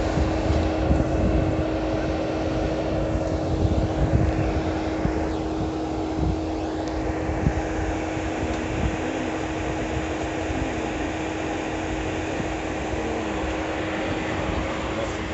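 Street traffic rumbling steadily, with a constant low hum running through it.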